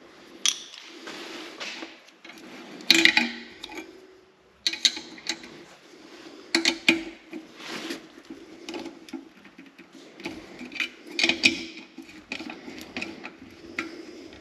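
Metal tools and parts clinking and clattering in irregular knocks over a steady low hum.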